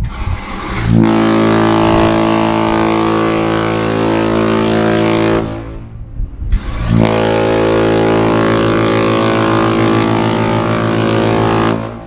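Queen Mary 2's ship's horns sounding a midday test: two long, deep blasts of about five seconds each. The first begins about a second in, and the second follows a short break and stops just before the end.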